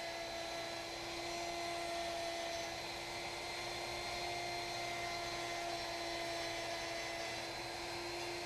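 Electric plunge router spinning a dovetail bit and cutting a sliding dovetail in thick wood: a steady, high-pitched motor whine that holds constant in pitch.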